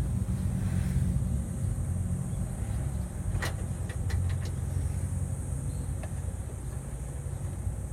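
Old truck's engine idling steadily, with a few light clicks about halfway through.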